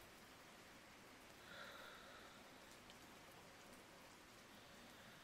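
Near silence: a faint steady hiss, with one soft, brief sound about a second and a half in.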